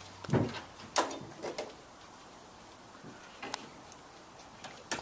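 A few sharp knocks and clatters of hard objects being handled, the loudest two close together about a second in, then a quiet stretch and a couple more near the end.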